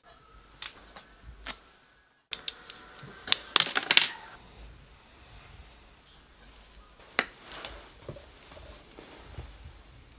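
Quiet room tone with scattered small clicks and taps, a cluster about three and a half seconds in and a single sharp one near seven seconds.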